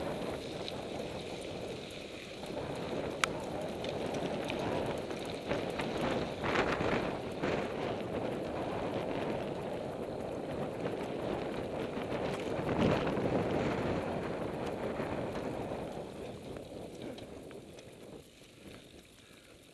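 Wind buffeting the microphone of a camera on a moving mountain bike, mixed with the rumble of knobby tyres rolling over dirt tracks. A single sharp click comes about three seconds in, and the noise dies down near the end.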